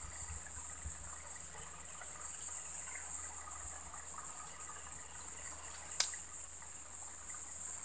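Quiet, steady outdoor background: an even high-pitched hiss with faint water-like trickling. One sharp click about six seconds in.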